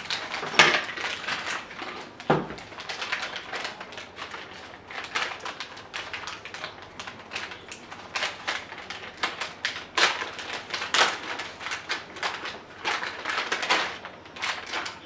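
Plastic packaging bags crinkling and rustling in the hands as they are torn open and parts are pulled out, with a thump on the table about two seconds in.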